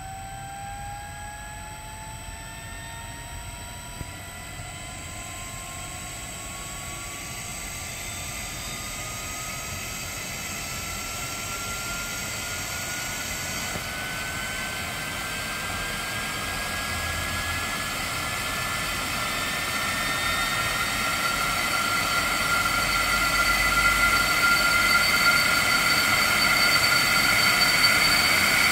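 Blower motor run by an Allen-Bradley PowerFlex 4 variable frequency drive, ramping up in speed from about 18 to 56 Hz: a whine that climbs steadily in pitch while the blower's rushing noise grows steadily louder.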